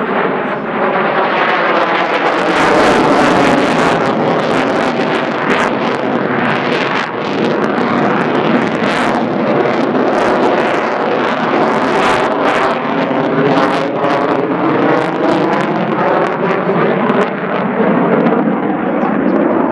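Boeing F/A-18F Super Hornet's twin General Electric F414 turbofans, loud jet noise as the fighter manoeuvres overhead, with a ragged crackle and a tone that sweeps slowly up and down as it moves across the sky.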